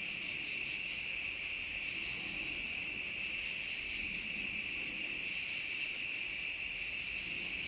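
Steady, high-pitched chorus of night crickets chirping continuously.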